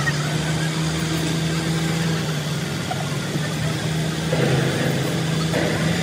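Truck engine running at a steady speed with an even hum, powering a truck-mounted hydraulic crane as it lifts a heavy crane boom.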